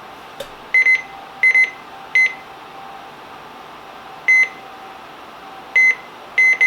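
Midland 74-200 weather radio giving short high beeps as its buttons are pressed to set the clock. The beeps come irregularly, some in quick pairs, about ten in all.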